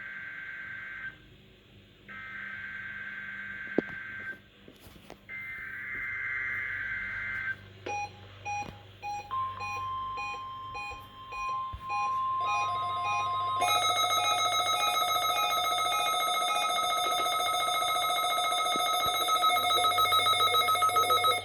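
NOAA Weather Radio weekly test: three bursts of the two-tone SAME digital header, then the steady 1050 Hz weather-radio warning alarm tone. Over it a weather-alert receiver beeps in an even pulse, and from about halfway a loud electronic alarm sounds, pulsing rapidly near the end.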